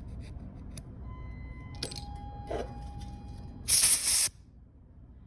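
A short blast from a can of compressed air, about half a second long, about two-thirds of the way through, blowing dust off the phone's frame. Before it there are a faint steady tone and a couple of light clicks.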